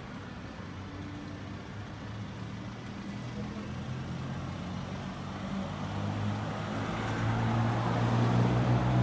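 A motor vehicle's engine approaching on the street, its steady hum growing louder throughout, over general traffic noise.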